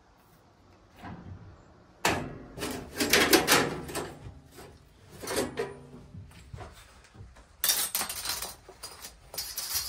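Steel bandsaw blade of a Woodland Mills HM122 portable sawmill being handled: it is worked over the mill's wheels, then held in a big loop and folded into coils. The blade makes irregular metallic rattling and springy clatter, loudest about three seconds in and again near the end.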